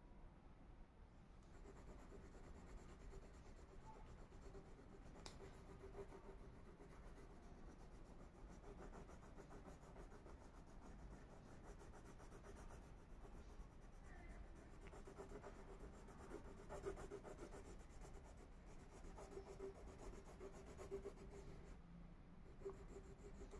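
Faint scratchy rubbing of a Faber-Castell wax crayon scribbling back and forth over paper while filling in a drawing.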